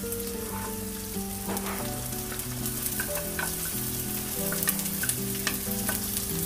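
Chopped vegetables sizzling in hot oil in a wok, stirred and tossed with a spatula; a bowl of more chopped ingredients is tipped in during the second half.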